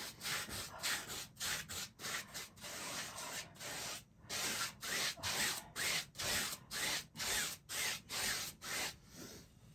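A paintbrush scrubbing phthalo blue acrylic paint across a stretched canvas, in quick back-and-forth strokes about two to three a second, with a brief pause about four seconds in.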